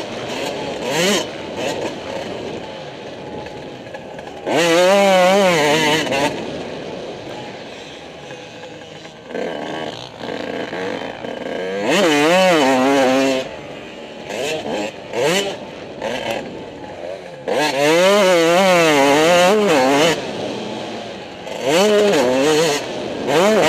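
Motocross dirt bike engine heard from the rider's helmet camera, revving hard in four loud stretches with the pitch wobbling quickly up and down as the throttle is worked, dropping to a quieter off-throttle run between them.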